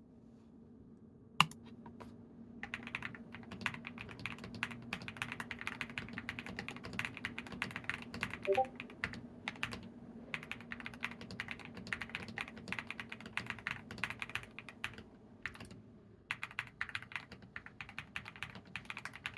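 Typing on a Qwertykeys QK100 mechanical keyboard fitted with lightly lubed Epomaker Bluebird switches, deep KCA-profile keycaps and IXPE case and plate foams, giving rapid, even key-press clicks. A single sharp click comes about a second and a half in. The typing begins about a second later, with short pauses near the end.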